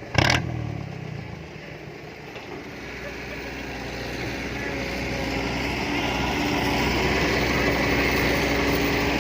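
Engine of a modified farm vehicle with a loud exhaust running steadily, its sound growing louder over several seconds. A brief loud burst is heard just after the start.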